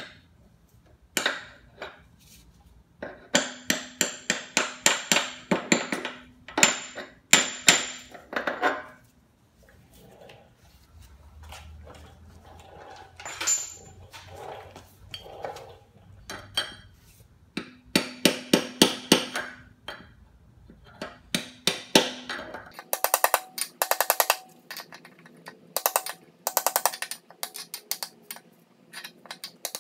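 Hammer tapping on a socket and then a flat steel bar set over a lawn mower's crankshaft, driving a new upper crankshaft oil seal into the crankcase. Rapid runs of metal-on-metal taps come in several bursts with short pauses, and the strikes in the last few seconds ring brighter and higher.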